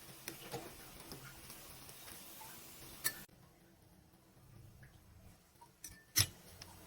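Scattered light clicks and knocks of kitchen utensils, with two sharper knocks, one about three seconds in and one just after six seconds.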